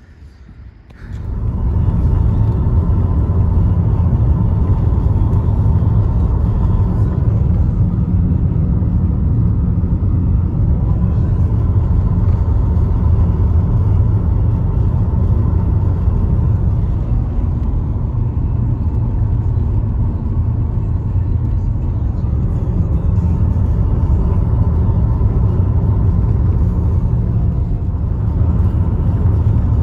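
Steady low road and engine rumble of a car driving on the highway, heard from inside the cabin, starting about a second in.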